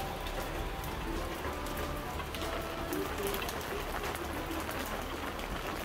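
Steady rain falling on roofs and pavement, with individual drops striking close by every so often.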